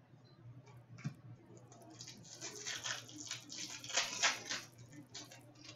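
Foil wrapper of a trading card pack being torn open and crinkled by hand: a run of crackling rustles from about two seconds in, after a single soft click about a second in.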